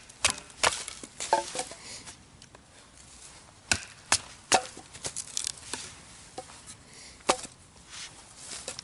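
Batoning: a wooden stick strikes the spine of a TBS full-tang bushcraft knife, driving it down through a small log to split it. A dozen or so sharp wooden knocks come at uneven intervals, some in quick runs of two or three, with the dry crack of the wood splitting.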